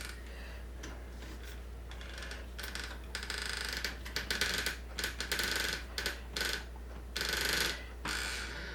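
Parts of a smart door lock being handled and fitted, with irregular clicks and scrapes of metal and plastic as the cable is fed through and the mounting plate is placed. A steady low hum runs underneath.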